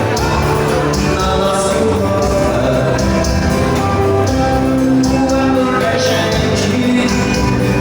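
Live dance-band music with singing over a steady beat.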